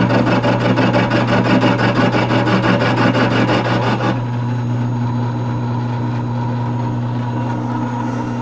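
Bench-top mill-drill running a 3/4-inch end mill dry into a cast-iron flywheel: a rhythmic cutting chatter pulsing about five times a second. The chatter stops abruptly about four seconds in, leaving the mill's motor humming steadily.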